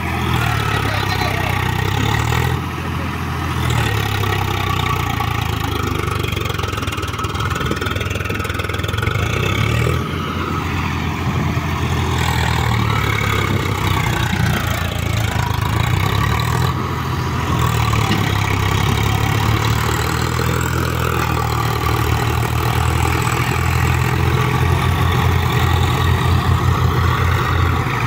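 Swaraj 735 FE tractor's three-cylinder diesel engine running under load as it pulls a sand-loaded trolley. The engine note rises and falls around the middle and turns into a low, rhythmic chugging near the end.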